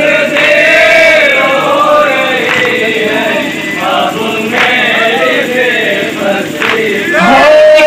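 Men chanting a nauha, a Shia mourning lament, a lead voice amplified through a microphone with the group singing along in unison. The singing gets louder near the end as a new line begins.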